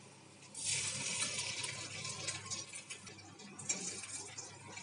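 Hot oil in a kadai sizzling as food is fried in it with a wire skimmer, a sudden burst of hissing about half a second in, then a second burst near the end as a fresh piece meets the oil.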